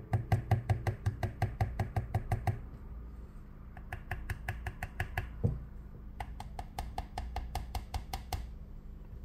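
A fast, even clicking, about six clicks a second, in three bursts with short pauses between, and a single louder knock about five and a half seconds in.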